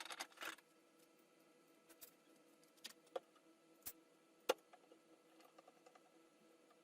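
Quiet room with a short scratchy rustle at the start, then a handful of scattered light clicks and taps, the sharpest about four and a half seconds in.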